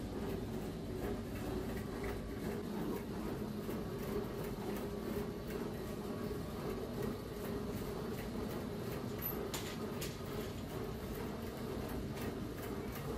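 Steady hum of bakery machinery running, with a faint tone running through it and a few light clicks about nine to ten seconds in.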